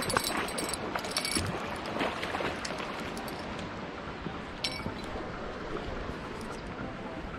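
Steady rushing noise of water below a dam spillway, with a few light clicks, likely from the fishing rod and baitcasting reel being handled.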